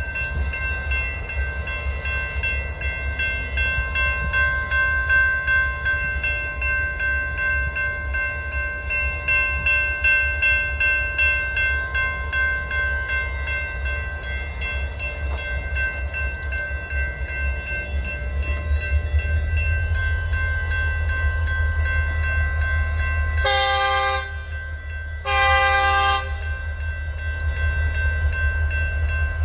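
A train rumbling steadily, with several steady high tones over it. Near the end a locomotive's multi-note horn sounds two blasts of about a second each.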